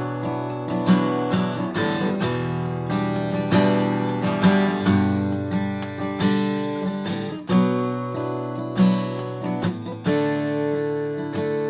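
Martin custom shop Style 28 acoustic guitar, with a bearclaw Sitka spruce top and Madagascar rosewood back and sides, being played: a run of picked notes and chords. About ten seconds in, a chord is struck and left to ring.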